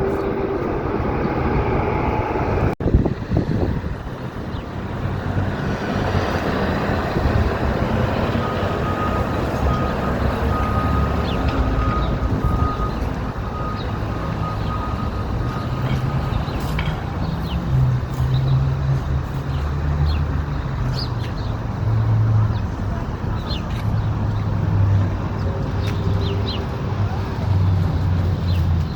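City street traffic: passing cars and trucks with a steady wash of road noise, and a heavy engine's low drone growing stronger in the second half. A steady high whine holds for several seconds in the middle.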